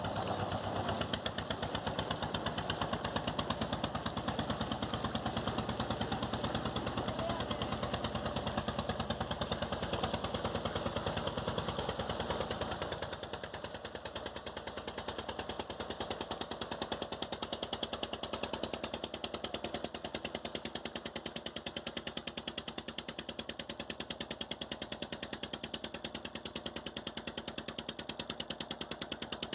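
Small boat's engine running with rapid, even pulses, along with the rush and splash of its wake. About halfway through, the deep part of the engine sound drops away and it gets a little quieter.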